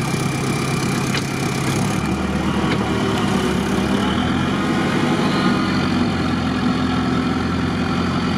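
Off-road vehicle's engine running steadily at low revs, heard from inside its cab as it creeps forward through muddy ruts; the engine note shifts slightly about two seconds in.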